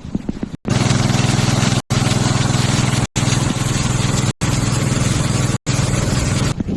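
A small vehicle engine running at a steady speed, a low hum under a rushing noise. It drops out abruptly for a split second about every second and a quarter.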